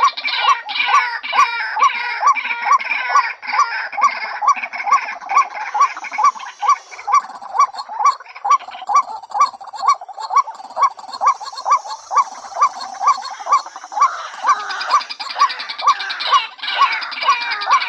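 Female white-breasted waterhen calling a fast, regular series of croaking notes, about two to three a second, over busier overlapping chatter. This is a decoy call used to draw waterhens in.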